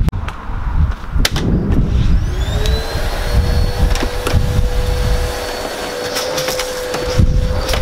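A vacuum cleaner is switched on about two seconds in, its motor spinning up to a steady whine. It is preceded by handling knocks and rumble.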